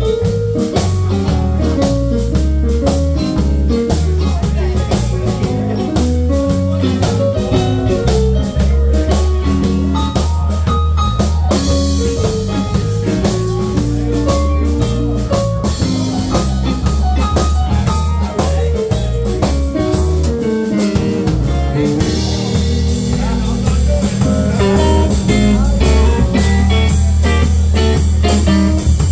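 Live band playing an instrumental passage: electric guitar lines over drum kit and bass, with keyboard.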